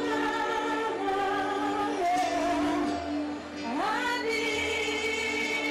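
A woman singing live over backing music in long held notes, swooping up into a long high note about two-thirds of the way through.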